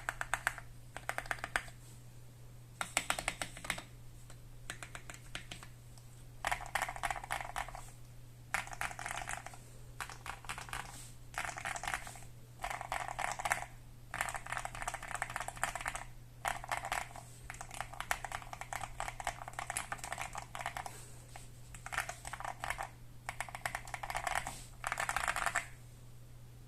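Typing on an AKKO ACR Pro 68 mechanical keyboard with lubed Akko CS Crystal switches, lubed stabilisers, tape mod and foam mod: quick runs of keystrokes in bursts of a second or two with short pauses between. The keystrokes have a muted, deep clack, and a faint steady hum sits underneath.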